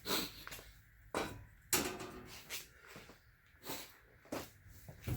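Cardboard packaging and saw parts being handled: a series of short rustles and knocks, with a longer rustle about two seconds in.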